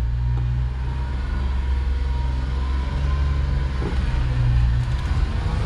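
1994 Suzuki Carry kei truck's 660cc inline-three engine running as the truck drives along, heard from inside the cab as a steady low drone with road noise.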